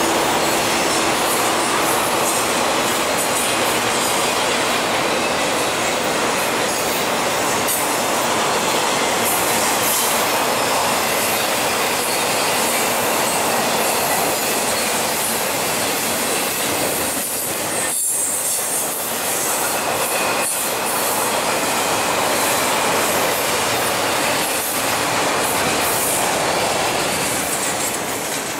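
Intermodal freight cars rolling past, their steel wheels running over the rails in a steady, loud clatter of wheel and rail noise. The sound fades near the end as the train moves away.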